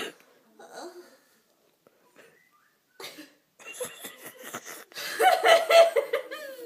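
A woman laughing: a short sharp burst at the start, a near-quiet pause, then stifled breathy giggles that break into loud laughter about two-thirds of the way in.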